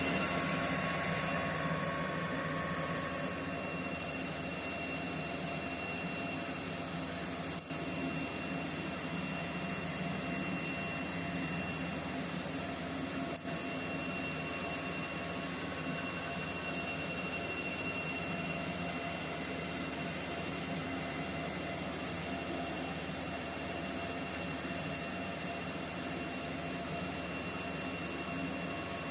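Antminer S19j Pro bitcoin miner's cooling fans running steadily: an even rush of air with a few fixed high whining tones.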